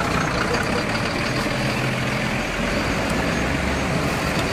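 A motor vehicle's engine running steadily nearby, a low rumble over street noise.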